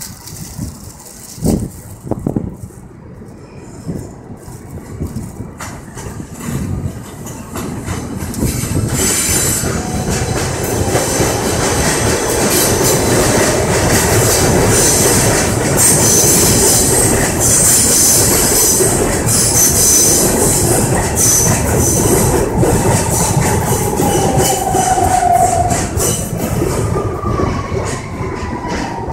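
Kawasaki R160B subway train with Siemens propulsion pulling into a station. A rumble and clatter of wheels on rail grows louder from about a quarter of the way in, with loud high-pitched wheel and brake squeal through the middle. Near the end come falling whines as the train brakes to a stop.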